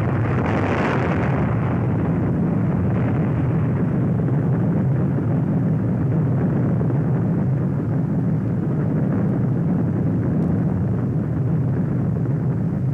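Airdropped atomic bomb going off, heard on an old documentary soundtrack: a long, steady rumble, with a hiss on top that thins out in the first second or two.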